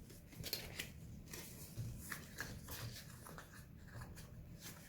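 Faint rustling and crinkling of plastic packaging being unwrapped from a puzzle cube, with a few small irregular clicks and crackles.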